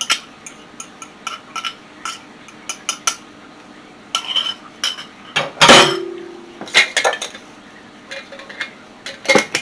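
Kitchen utensils and containers being handled and set down on a countertop: scattered small clicks and clinks, with one louder clink about halfway through that rings briefly.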